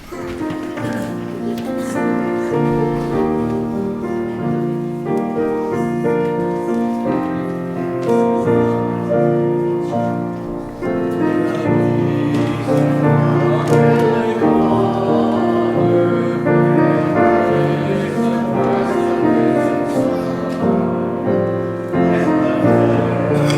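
A hymn played on piano and keyboard, in slow, held chords.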